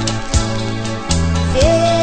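Music: a recorded Brazilian brega song with steady bass notes and drum hits. A held melody note comes in about one and a half seconds in.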